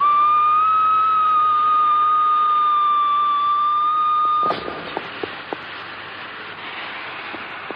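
Steam locomotive whistle blowing one long steady note, cut off suddenly after about four and a half seconds. A steady hiss follows, with a few sharp clicks.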